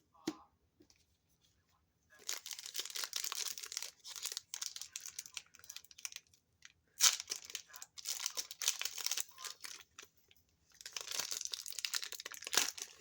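Crinkling and tearing of a foil booster-pack wrapper being opened by hand, in three spells of dense crackle with a sharp snap in the middle. A single short knock comes just before.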